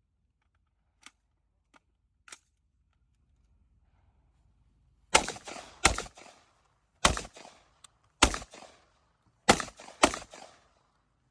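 Six loud gunshots fired one at a time over about five seconds, each followed by a short echo, after a few faint shots heard in the first couple of seconds.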